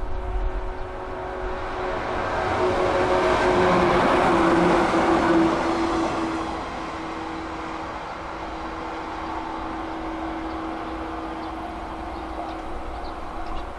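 A JR local electric train passing close by. The running noise of wheels on rail and the motors' steady whine build to a peak about four to five seconds in. The whine drops slightly in pitch as the train goes past, then settles to a lower, steady running sound as it draws away.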